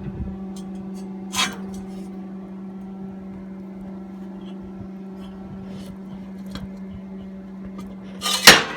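Two brief knocks or scrapes from parts of a homemade sawmill being handled: a soft one about a second and a half in and a loud one near the end, over a steady low hum.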